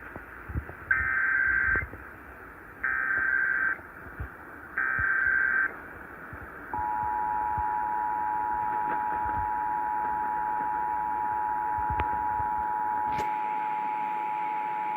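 Emergency Alert System broadcast over the radio. Three SAME digital header bursts, each a harsh screech just under a second long, come about a second apart. About seven seconds in, the steady two-tone EAS attention signal starts and holds, announcing a Required Monthly Test alert.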